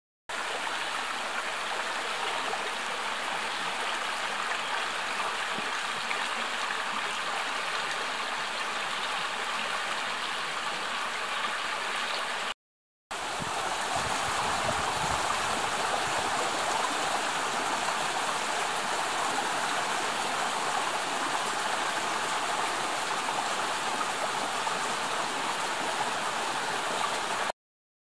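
Shallow mountain trout stream running over rocks, a steady rush and babble of flowing water. It cuts out for about half a second just before the middle, then carries on slightly louder.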